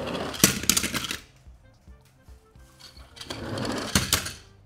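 A die-cast toy truck rolling fast across a smooth plastic board, its wheels rattling, with a few sharp clacks; a second such rattling run comes about three seconds in.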